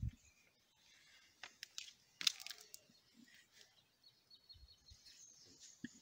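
Whiteboard marker scratching across the board in short strokes as small circles are drawn, with a few brief thin squeaks of the tip; faint overall, opening with a dull thump.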